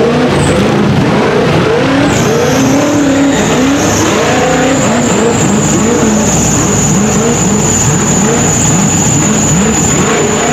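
Rock bouncer buggy's engine revving hard on a steep climb, its pitch sweeping up again and again, about twice a second. A steady high-pitched whine sounds from about two seconds in.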